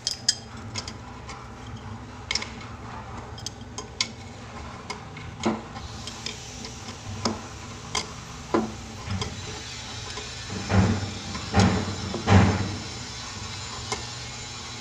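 Hands fitting a sensor-faucet solenoid valve onto its braided supply hose: scattered light clicks and taps of metal parts, with three louder scraping rattles a little past the middle, over a steady low hum.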